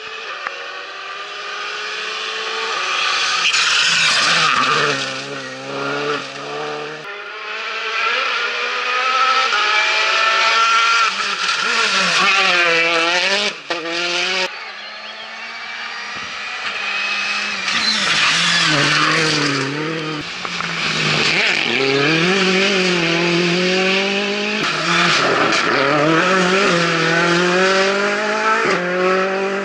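Rally cars on a gravel stage driven flat out past the roadside, engines revving high and dropping back again and again with gear changes and lifts, over a steady hiss of tyres on loose gravel. The sound changes abruptly a few times as separate passes are cut together.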